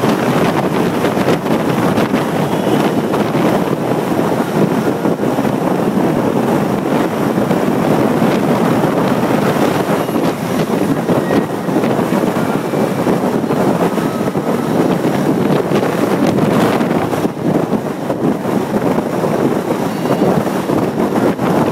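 Steady wind noise battering the microphone, mixed with the road and engine noise of a vehicle driving along a highway.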